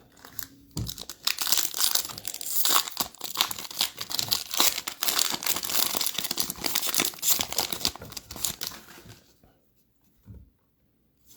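Plastic wrapper of an NBA Hoops retail trading-card pack being torn open and crinkled by hand, a dense crackling that stops about nine seconds in. A soft thump follows near the end.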